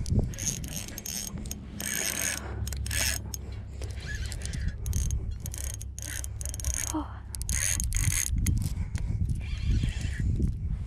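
Spinning reel worked against a heavy hooked fish: irregular bursts of gear and drag clicking and rasping as line is won back, over a steady low rumble.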